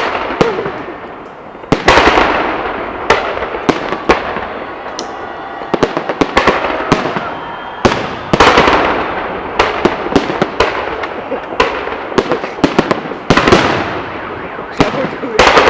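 Fireworks salute: shells bursting overhead in a long series of loud bangs, sometimes several close together, each followed by a fading crackle and echo.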